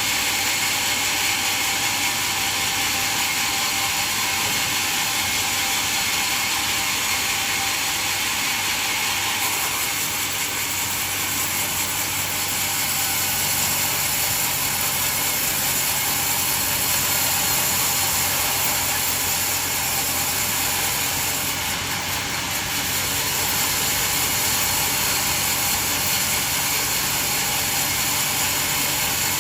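Band sawmill running steadily as it saws a coconut log, a continuous mechanical noise with no break.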